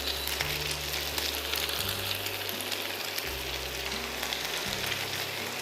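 Egg-and-milk-soaked bread slices sizzling in a frying pan of foaming butter and sunflower oil: a steady crackling hiss. A quiet background music bass line runs underneath.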